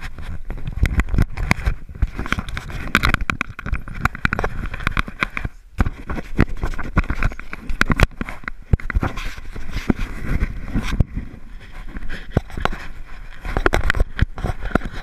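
A dog's long white fur rubbing and scraping against a GoPro camera worn on its body. It makes a dense crackling rustle full of small irregular clicks as the dog moves about.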